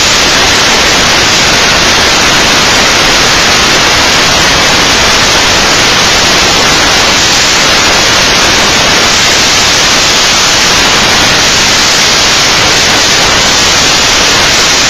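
Loud, steady static hiss like white noise, even in level throughout, that cuts in and out abruptly.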